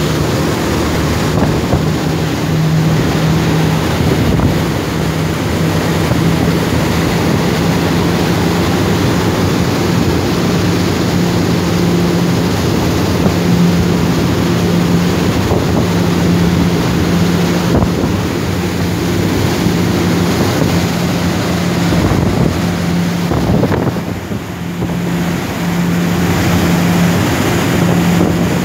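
Motorboat engine running steadily at speed with a constant low hum, over the rush of the churning wake and wind buffeting the microphone.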